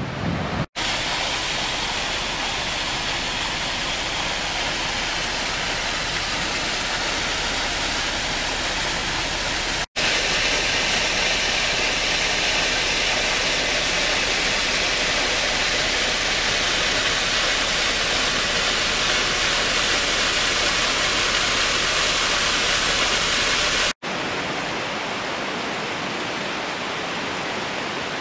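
Waterfall rushing steadily, a constant hiss of falling water, cut abruptly three times between shots, loudest in the middle stretch.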